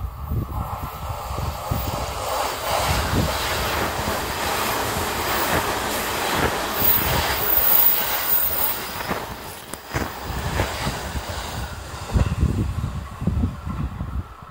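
Keiyo Line rapid electric train running through the station at speed without stopping: a rising rush of wheels on rail as the cars go past, with a thin high wheel squeal about halfway through. Low thumps near the end as the train draws away.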